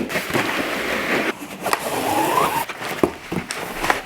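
A cardboard box being opened and its packaging handled: rustling and scraping of cardboard with irregular knocks and clicks.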